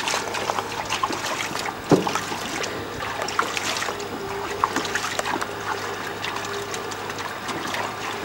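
Water splashing and trickling in the bottom of a small plastic dinghy as a man scoops and sloshes it by hand, with many small splashes and a single knock about two seconds in.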